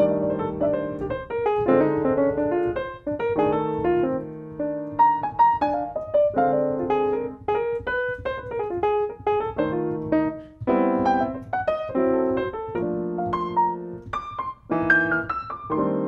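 Sampled grand piano from the IK Multimedia Pianoverse plugin, 'Vintage NY Jazz' preset, played from a MIDI keyboard: sustained chords in the lower register with a melody of quick single notes over them.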